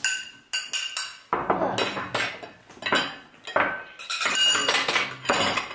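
Tableware clinking at a meal: a spoon and chopsticks knocking against small porcelain bowls and a glass dish, an irregular run of sharp clinks, some ringing briefly.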